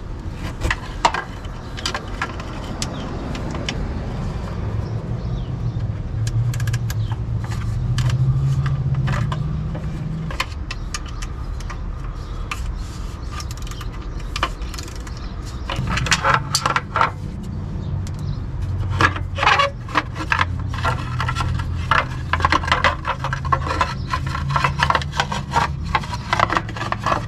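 Hand ratchet and socket being worked on motor mount bolts: metal tools scraping and clinking, with runs of quick ratchet clicks that grow dense in the second half.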